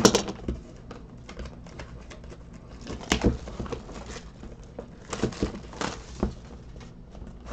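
Clear plastic shrink wrap crinkling and tearing as it is pulled off a cardboard box of trading cards, with scattered taps and rustles from the box being handled.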